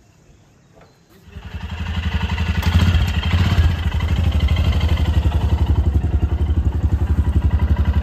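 Small engine running with a fast, even throb. It comes up about a second in, grows loud within a couple of seconds and then runs steadily.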